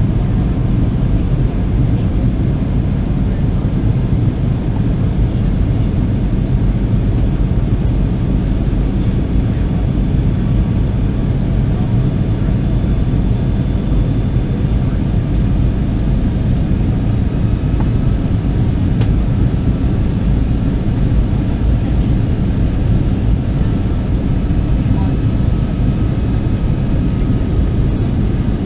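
Steady cabin noise inside a Boeing 737-800 in flight: the deep, even roar of airflow and its CFM56 turbofan engines, with faint thin high whines that slowly creep up in pitch.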